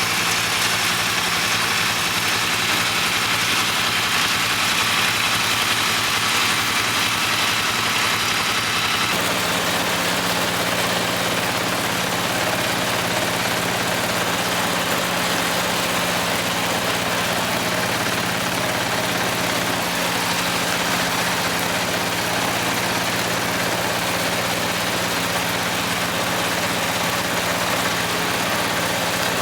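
Kubota L3200 compact tractor's diesel engine running steadily, with an abrupt change in its tone about nine seconds in.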